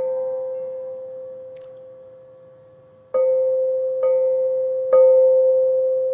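Metal bells resting in water-filled bowls, struck and left to ring, each a long steady bell tone on one pitch that slowly fades. A ring from a stroke just before carries through the first three seconds, then three more strokes come about a second apart, the last of them still ringing at the end.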